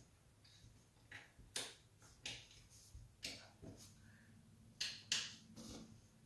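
Faint, irregular clicks and ticks of a hand screwdriver and metal towel-ring bracket as a screw is turned in to fasten the ring to its mounting bracket.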